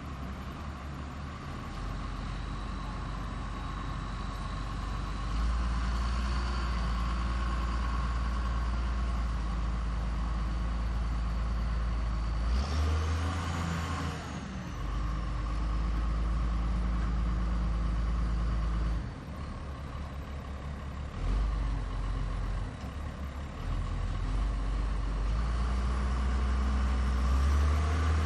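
Heavy diesel construction machine running, its engine level stepping up and down as it works, with a brief whine that rises and falls about 13 seconds in.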